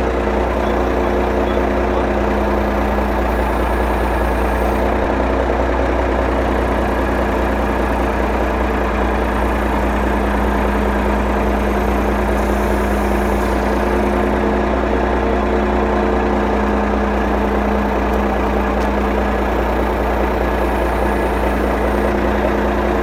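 Loader engine idling steadily, a constant low hum with no change in speed.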